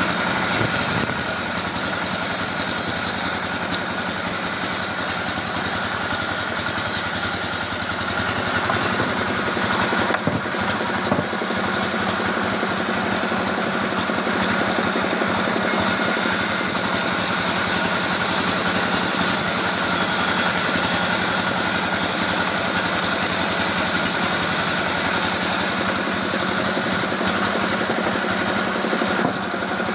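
Engine-driven sawmill running steadily while sawing teak wood, a constant machine drone with a high hiss that changes strength a few times.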